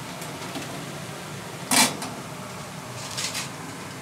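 Cookware and utensils being handled while frying in a kitchen: one sharp clack about two seconds in and a couple of lighter clicks near the end, over a steady background hum.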